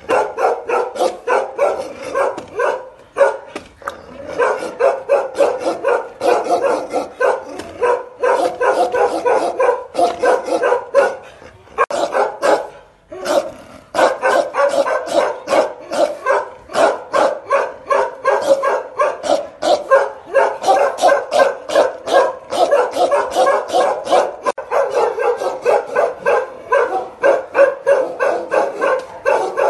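Bakarwal dog barking aggressively in a fast, unbroken string of barks, several a second, with a pause of about a second near the middle.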